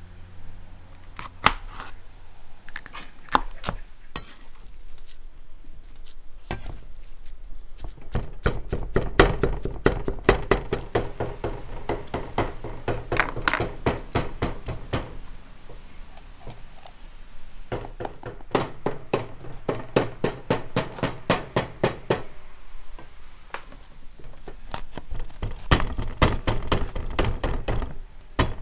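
Bell peppers being chopped on a wooden cutting board with a wavy crinkle-cut blade. The blade knocks on the board in runs of quick strokes, with short pauses between the runs.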